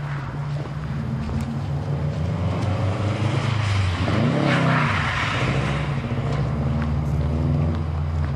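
Car engine running steadily, with a louder swell of engine and rushing noise about halfway through that rises and falls in pitch as a car drives past close by.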